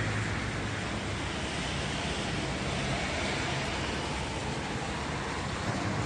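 Steady outdoor background noise of road traffic and wind, an even rushing with a low rumble underneath.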